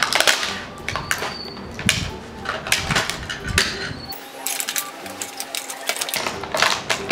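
Clear plastic packaging crackling and rustling as it is pulled open and torn, with irregular clicks and small knocks of plastic toy pieces.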